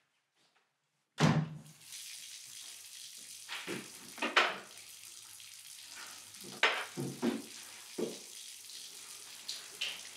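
A sudden thud about a second in, then a washbasin tap running steadily into the sink, with several sharp knocks heard over the running water.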